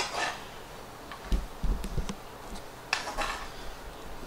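Metal kitchen tongs clicking and scraping against a frying pan while shrimp and spaghetti are lifted out, with a sharp click at the start, a few knocks about halfway through and a scrape near the end.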